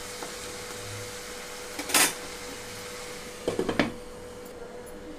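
A spatula stirring tomatoes and fenugreek leaves in a nonstick kadai, then a glass lid set down on the pan. There is a sharp knock about two seconds in and a quick cluster of clinks a little later, over a steady hiss.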